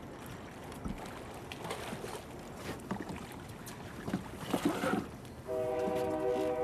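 Wind and river noise around a small fishing boat as a fish is reeled in alongside, with a few faint knocks and splashes. About five and a half seconds in, a held music chord comes in and carries on.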